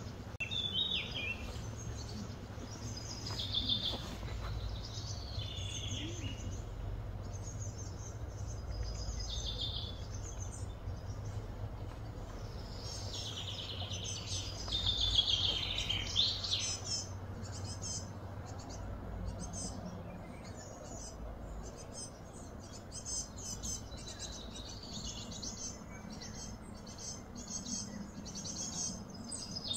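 Birds chirping and calling in repeated short high phrases over a steady low background rumble. In the second half the calls become rapid runs of short high notes.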